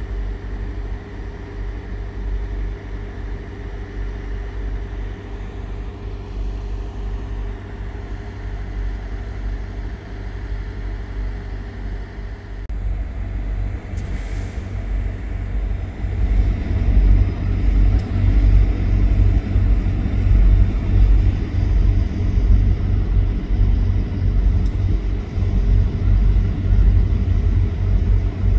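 Low rumble of a diesel train at a station platform, steady at first and growing louder a little past halfway through.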